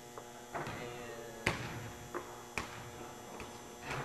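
Basketballs bouncing on a hardwood gym floor: about seven irregular, echoing thuds, over a steady electrical hum.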